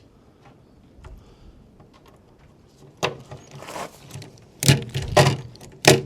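A lazy-tong pop riveter setting rivets: four short, sharp metallic clacks in the second half, with rattling between them.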